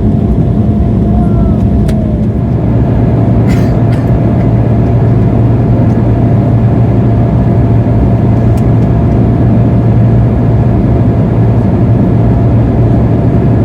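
Steady in-cabin noise of an Embraer 175 airliner climbing toward cruise: its GE CF34-8E turbofan engines and the airflow, heard from a seat behind the wing. A low drone carries a steady whine, with a couple of faint clicks about four and nine seconds in.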